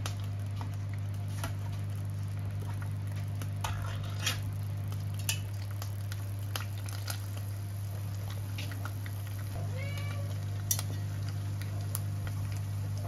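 A metal tuna tin being opened by its ring-pull, a few sharp metallic clicks, over a steady low hum. A cat meows once, about ten seconds in.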